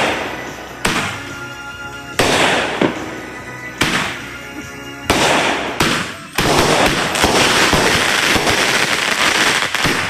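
A consumer fireworks cake firing in a volley. Sharp bangs come about once a second, each followed by crackling. About six seconds in, the bangs run together into a continuous crackle.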